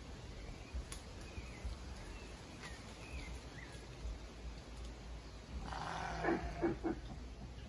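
A single animal call near the end, about a second and a half long and pulsing three or four times, is the loudest sound. Earlier come a few faint, short, high chirps over a low rumble.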